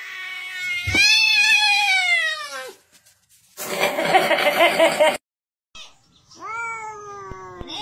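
Domestic cats yowling: a long, drawn-out meow falling in pitch about a second in, a harsh, noisy outburst around four seconds in, and after a short silence another shorter falling meow near the end.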